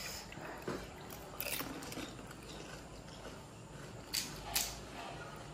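Quiet eating sounds: panipuri being chewed, with a few short crisp cracks of the hollow puri shells being broken and bitten, twice near the start and twice about four seconds in.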